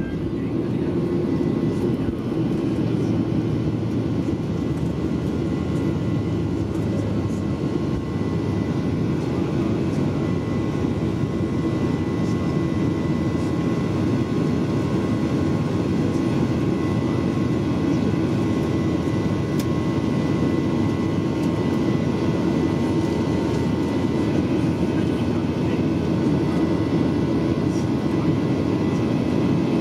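Boeing 737-800's CFM56-7B turbofan engines at takeoff thrust, heard from inside the cabin at a window seat over the wing: a steady loud rush with a thin steady whine on top, through the end of the takeoff roll, lift-off and the initial climb.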